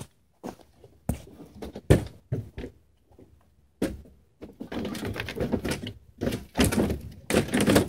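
Repaired plastic bumper skin of a Suzuki SX4 knocking and clacking against the car as it is fitted back into place: a run of sharp knocks with longer rattling, scraping stretches in between.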